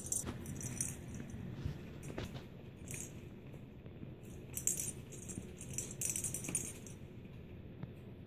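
Small bell jingling in short, irregular bursts, with a few soft knocks in between, as kittens play.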